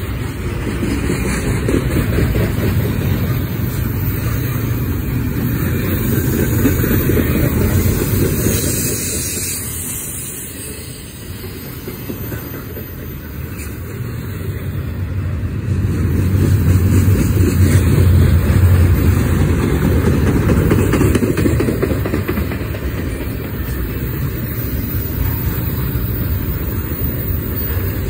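Double-stack container train rolling past: the steel wheels of its well cars running on the rails with a steady, loud rumble that eases for a few seconds about a third of the way through, then swells again.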